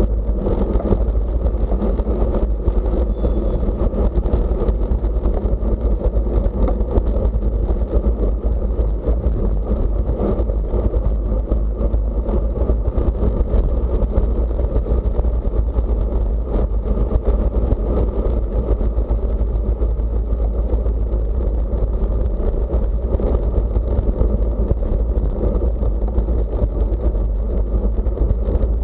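Steady wind rumble and road noise from riding at racing speed, the wind buffeting the microphone, with no let-up or change.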